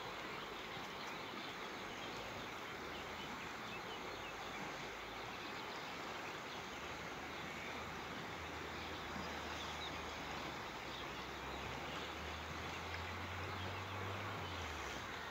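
Quiet outdoor ambience: a steady hiss with faint high chirps scattered through it and a low hum underneath.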